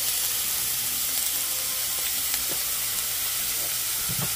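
Chopped onions and garlic sizzling in hot fat in a frying pan, a steady hiss. There is a short, soft low knock near the end.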